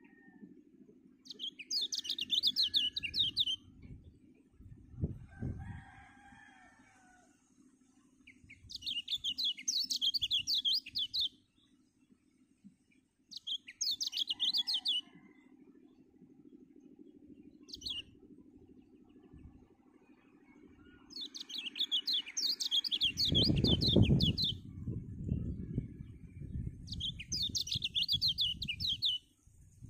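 White-eye (kecial kuning) singing in six quick, high trilling phrases of one to three seconds each, with short pauses between them. This is a 'pancingan' song, used to provoke other birds into singing. Low rumbling noise joins in during the last few seconds.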